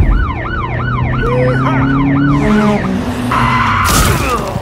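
Siren sound effect sweeping rapidly up and down, about three to four sweeps a second, over a steady low background. Near the end it gives way to a held high tone and a sudden short burst of noise.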